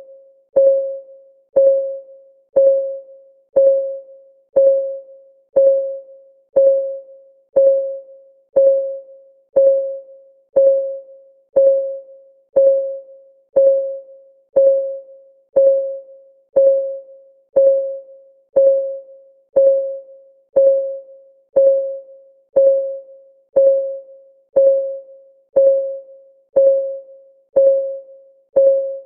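Countdown timer's clock ticking sound: a steady tick once a second, each tick a short pitched click at the same note that dies away quickly.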